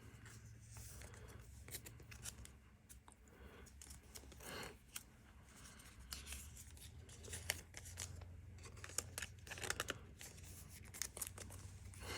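Faint rustling, scraping and small clicks of Pokémon trading cards being slid into plastic card sleeves, with occasional crinkling of packaging.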